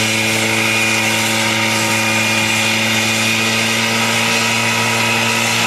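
Homemade single-seat helicopter's engine running steadily as it taxis with its main and tail rotors turning: a loud, even drone with a thin high whine over it.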